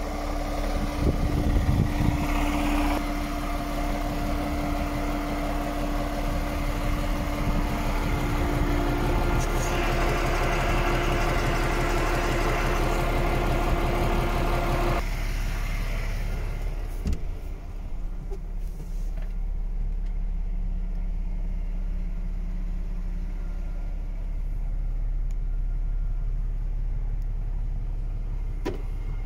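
DAF XF 440 truck's PACCAR MX-13 six-cylinder diesel idling steadily, with a whine that steps up in pitch about a third of the way in. About halfway through the sound turns duller, heard from inside the cab.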